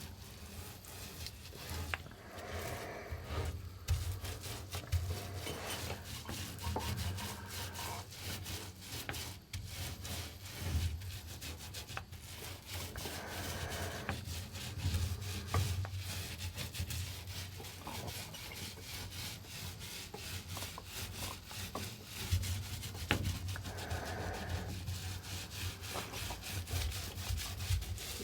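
Hand-tool rubbing and scraping, many quick irregular strokes one after another, over a steady low hum.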